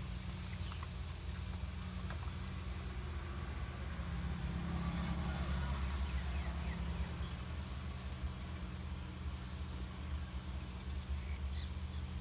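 Steady low mechanical hum, like an engine running, with faint small clicks over it.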